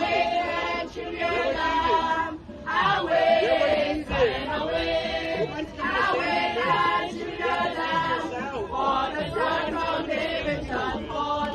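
A small group of women and men singing a church song together, with sustained, gliding sung notes.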